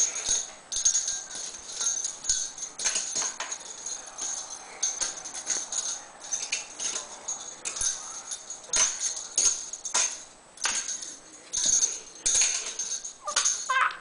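Training bells hanging on a door, jangled over and over by a miniature schnauzer in irregular jingling bursts.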